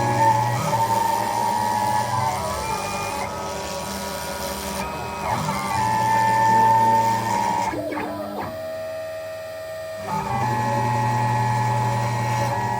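Genmitsu PROVerXL 6050 Plus CNC router carving plywood. It runs with a steady whine made of several held tones, which jump or glide to a new pitch every few seconds as the machine changes moves. It goes quieter for about two seconds near the end.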